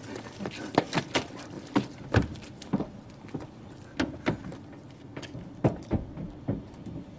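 Irregular sharp clicks and knocks as people board a minibus: hard-soled shoe steps on the pavement and hands knocking on the seats and door.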